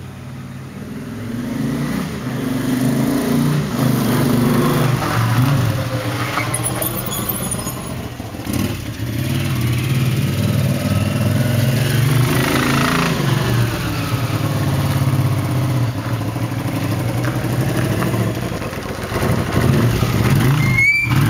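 1981 Honda CX500 V-twin engine running under way, its note rising and falling with the throttle and growing louder over the first few seconds as the bike comes closer; the motor is running rough. A brief high squeal near the end.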